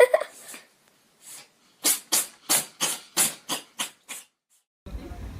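A cat sneezing over and over in quick succession: about eight short, sharp sneezes at roughly three a second, after a loud burst right at the start.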